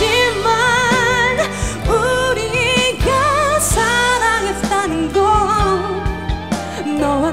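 A woman sings a pop ballad live, her voice rising and falling in phrases with wide vibrato on the held notes, over backing music.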